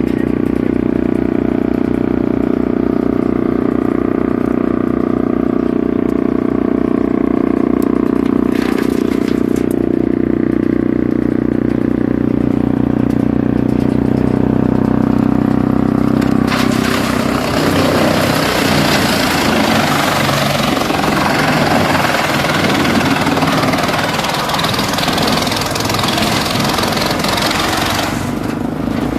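Wood chipper running with a steady engine hum; a little past halfway a loud, rough noise joins in as material is fed through and chipped, lasting about twelve seconds before dropping back to the steady running sound near the end.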